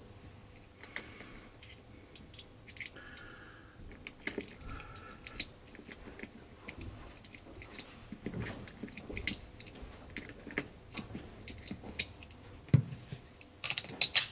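Scattered light clicks and rattles of handling, with a couple of sharper knocks near the end.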